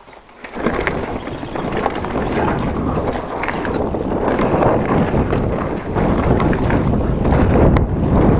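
Wind buffeting the microphone and tyres rumbling over a dirt trail as a Giant Trance full-suspension mountain bike rolls off. The noise starts about half a second in and grows steadily louder.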